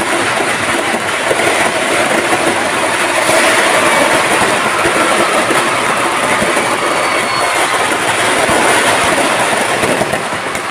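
A large crowd cheering and shouting loudly and steadily, with a few voices rising above it.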